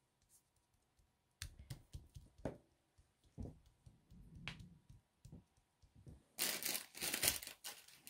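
Paper and card being handled on a craft desk: a few scattered taps and clicks, then a loud stretch of rustling, crinkling paper starting about six seconds in.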